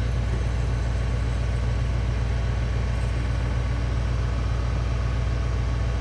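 BMW car engine idling steadily with the air-conditioning compressor running, while the system is topped up with R134a refrigerant.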